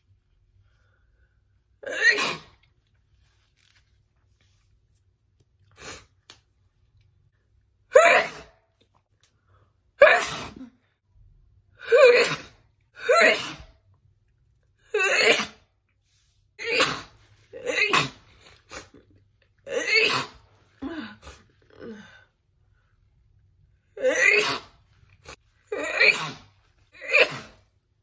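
A woman sneezing over and over in a sneeze attack: about fourteen short, loud sneezes, spaced several seconds apart at first, then coming every second or two from about ten seconds in.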